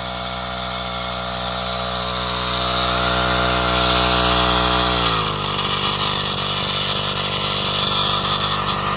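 A Komatsu G260 two-stroke brush-cutter engine (34 mm bore) runs at working speed, driving a 90 mm long-tail pump through a gearbox. About five seconds in, the throttle is let off and the engine drops to a lower, rougher idle, ready to be shut off for refuelling.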